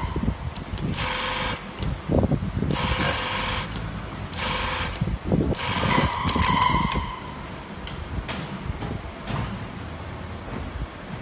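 Industrial chain stitch bottom hemming machine sewing a denim jeans hem, its motor running in spells, broken by about four short hisses of compressed air from its air-driven parts. It goes quieter after about seven seconds.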